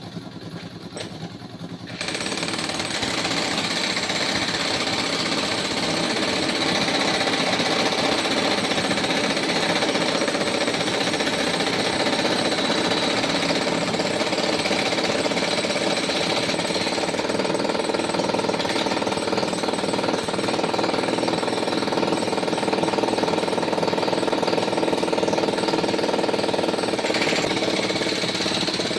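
Jackhammer (road drill) breaking the road surface, starting suddenly about two seconds in and then hammering continuously and loudly.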